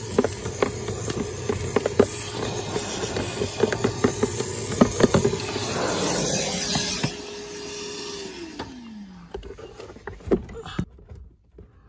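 Milwaukee vacuum running with a steady hum and rush of air as it sucks dust out of a car's cabin-filter housing, with clicks and knocks as the nozzle works against the plastic. About eight seconds in it is switched off and the motor's pitch winds down over about a second.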